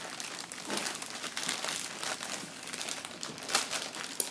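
White plastic poly mailer bag crinkling and rustling as hands work it open, with a couple of sharper crackles near the end.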